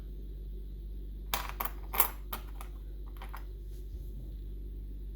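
Small metal levers from a Union Strongbolt lever lock clicking and clinking as they are handled and set down: a quick run of light metallic clicks about a second and a half in, the sharpest near two seconds, then a few fainter ones a little after three seconds, over a steady low hum.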